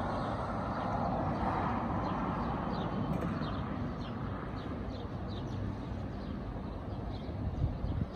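Outdoor city ambience: a steady hum of distant road traffic. In the middle, a bird chirps a quick run of high notes, each falling in pitch.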